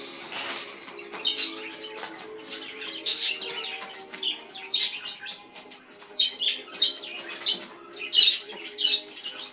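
A cockatoo hopping and flapping about on newspaper makes a dozen or so short, irregular rustling bursts.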